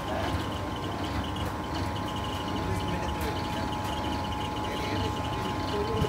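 Steady rumbling background noise with a constant hum running through it.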